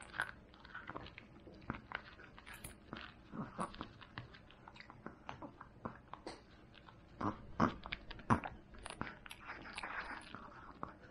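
Smooth-coated chihuahua chewing a duck knee joint, crunching it into fragments with irregular sharp cracks; the loudest few come about two-thirds of the way through.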